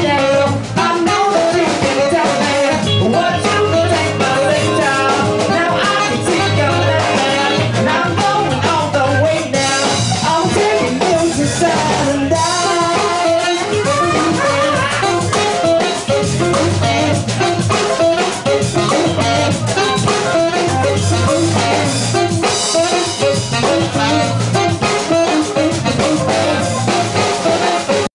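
A live band playing an upbeat, ska-flavoured song: electric guitar, electric bass, saxophone and a steady beat, with a singer's voice at the microphone.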